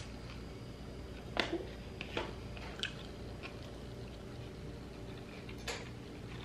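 A person biting into and chewing a slice of homemade pizza. There are a few short crunching sounds between about one and a half and three seconds in, and one more near the end.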